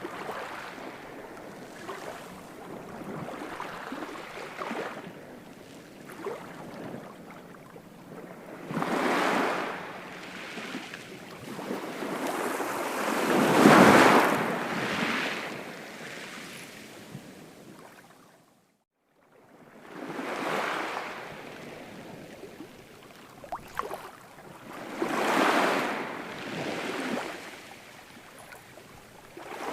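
Ocean waves breaking and washing in, in slow swells every few seconds, the loudest about halfway through. Shortly after it, the sound cuts out completely for about a second.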